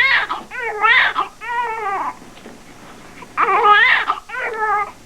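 Newborn baby crying in short, high-pitched wailing bouts, with a pause of about a second midway before the crying starts again.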